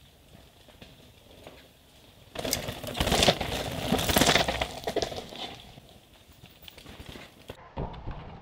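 A downhill mountain bike rides past close by: knobby tyres crunch over dirt and loose stones while the bike clatters. It swells about two and a half seconds in, is loudest over the next two seconds, then fades. Near the end, after a sudden change, another bike rattles over rocky ground.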